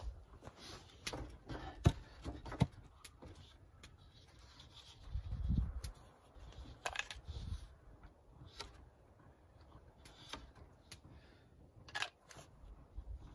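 Scattered, irregular sharp clicks and knocks, with a dull low thump about five seconds in.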